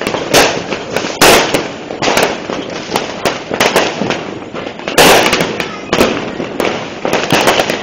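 Fireworks and firecrackers going off in a dense, continuous barrage of bangs and crackles, with louder clusters of blasts about a second in and again about five seconds in.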